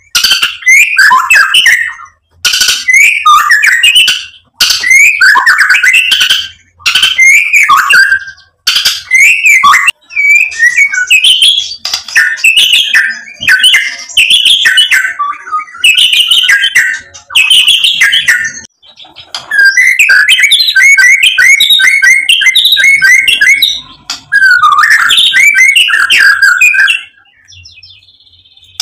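White-rumped shama (murai batu) singing loud and vigorously: phrases of rapidly varied high whistles and chattering notes, each a second or two long with brief pauses between them. The phrases run into longer strings later on, including a run of quickly repeated notes. The song stops a little before the end.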